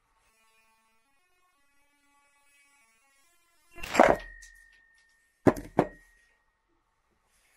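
Mallets with recycled HDPE heads and oak handles set down on a wooden workbench: one heavy knock about four seconds in, then two quick knocks a moment later as a second mallet lands beside the first.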